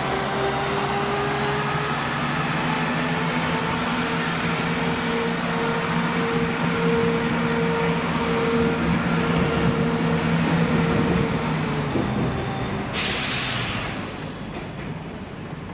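Class 91 electric locomotive moving slowly, its traction equipment giving a whine that rises in pitch and then holds steady. About thirteen seconds in there is a short hiss of air, and then the sound fades.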